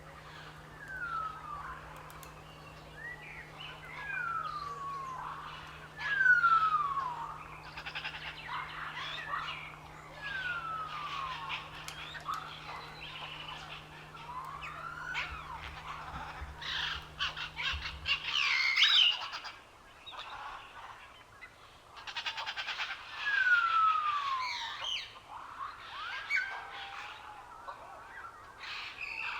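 Birds calling, with a clear whistle that slides down in pitch repeated about every two seconds among shorter chirps. A low steady hum underneath stops about two-thirds of the way through.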